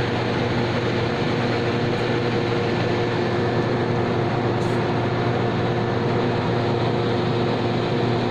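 Commercial heat pump running steadily: a constant hum with a few steady tones over an even rushing noise, unchanging throughout.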